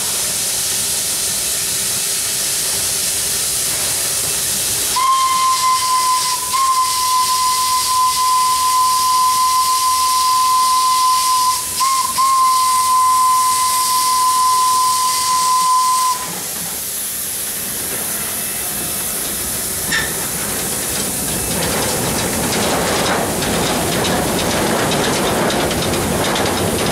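Orenstein & Koppel narrow-gauge steam locomotive approaching with steam hissing, then sounding its steam whistle in one long, steady blast of about eleven seconds, broken briefly once near the middle. After the whistle stops, steam hiss continues, and a louder rattling noise builds as the train runs past.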